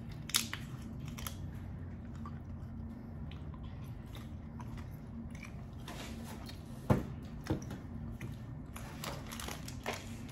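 Close-miked chewing of a soft, chewy peach Hi-Chew candy: wet mouth clicks and smacks, with a few sharper, louder clicks about half a second in and again around seven seconds in.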